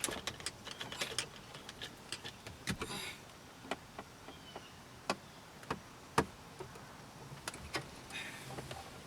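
Sharp, irregular clicks and taps from hand tools and fittings as the mounting bolts of an HVAC blend door actuator are worked loose under a dashboard. They come in a quick cluster at first, then as single clicks about a second apart, with two brief rustles of handling.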